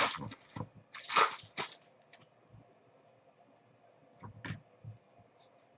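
A foil trading-card pack being torn open: quick noisy rips and crinkles of the wrapper in the first couple of seconds, then a few light clicks and rustles as the cards come out.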